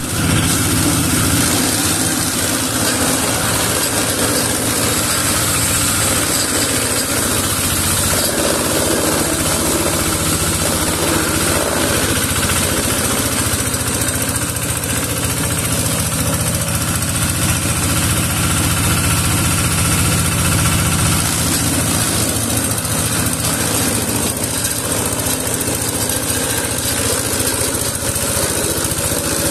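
Small engine driving an organic-waste shredder, running steadily while green stalks and leaves are fed into its chopping blades.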